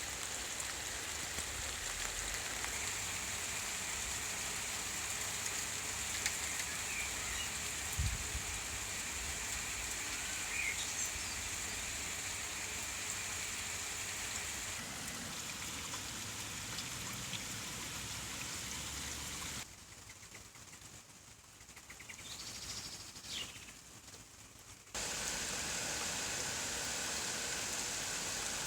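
Steady summer rain falling as an even hiss, with a few faint bird chirps and one brief low thump. A little past the middle the rain sound drops away for about five seconds, then comes back.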